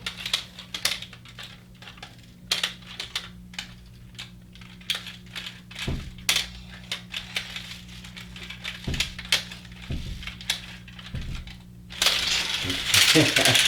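Small die-cast metal pullback toy cars clicking and clattering on a hard surface as they are set down, pulled back and released, over a steady low hum. A louder rush of clattering noise comes about twelve seconds in.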